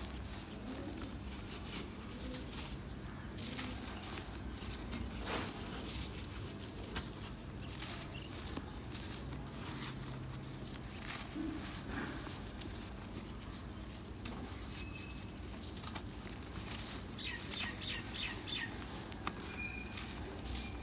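A hand raking through and crumbling dry red dirt, giving scattered gritty crunches and rustles. Birds chirp in the background, with a quick run of chirps near the end.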